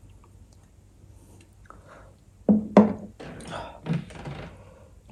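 Two sharp knocks about halfway in, a third of a second apart, then about two seconds of close-miked clicking and rustling mouth and food-handling noises as eating begins.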